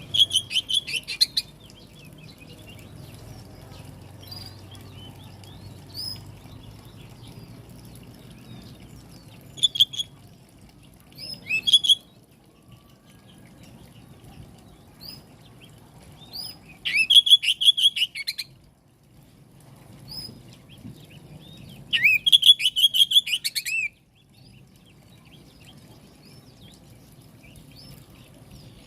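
Oriental magpie-robin (kacer) song: loud bursts of rapid, high, chattering repeated notes, five of them, the longest two about a second and a half each near the middle and later on, with faint scattered chirps and a low background hum between.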